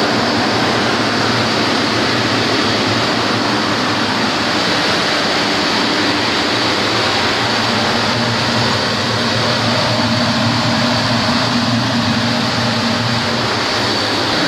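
E60-H textile comber and surrounding mill machinery running: a steady, loud mechanical din with a constant hum and a thin high whine.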